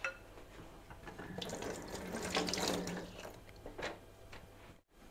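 Batter being stirred by hand with a whisk in a glass bowl: wet sloshing and scraping, loudest in the middle, with a single knock near the end.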